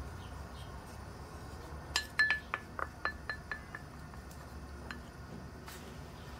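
Small ceramic bowl clinking: a quick run of about eight light taps, each with a brief ringing tone, about two seconds in, then one more clink near the end.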